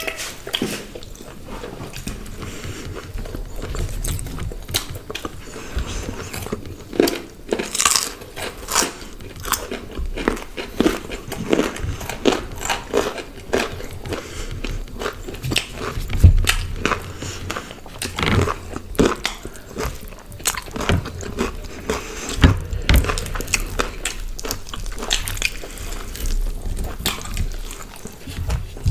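Close-up eating sounds of grilled chicken and paratha being bitten and chewed, made up of irregular crunches and wet clicks.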